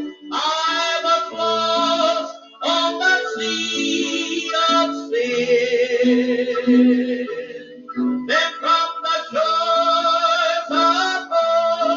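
Recorded gospel song: a solo voice singing held notes with vibrato over guitar accompaniment.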